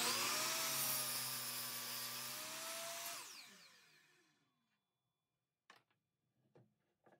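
Compound miter saw's motor running at full speed for about three seconds with a steady whine, cutting through a wooden piece. It is then switched off, and its pitch falls as the blade spins down over about a second and a half. A few light knocks of wood being handled follow near the end.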